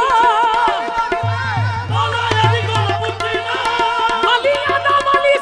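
Live qawwali: a man's lead vocal in ornamented, wavering melismatic runs over a steady tabla rhythm, with held drone notes beneath and a low hum joining about a second in.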